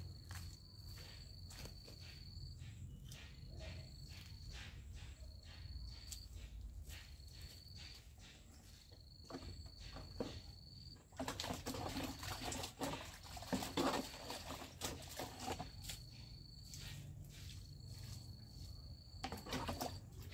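An insect trilling: one steady high-pitched trill repeated in stretches of about one to two seconds with short gaps. From about eleven to sixteen seconds in, louder scraping and rustling covers it.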